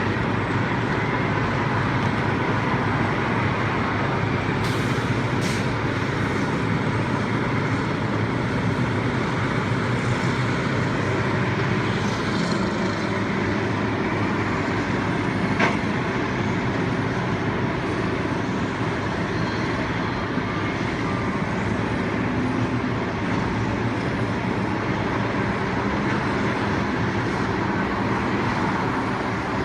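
Steady rumble of heavy vehicle engines, with a few short sharp clicks about five seconds in and again near sixteen seconds.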